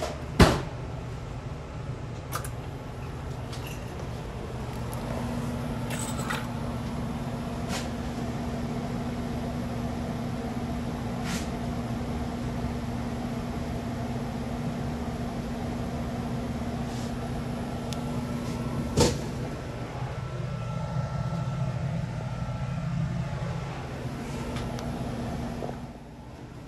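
Steady hum of a small commercial freezer's condensing unit running, with a steady tone that comes in about five seconds in and drops out around twenty seconds. A sharp knock comes just after the start and another about nineteen seconds in, with a few lighter clicks between.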